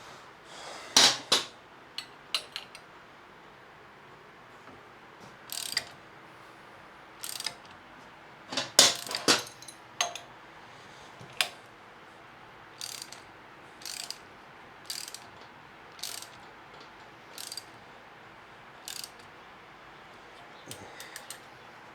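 Ratchet wrench tightening the bolts of screw-type spring compressors on a motorcycle rear shock spring: a series of short ratcheting rasps with pauses, settling into about one stroke a second in the second half.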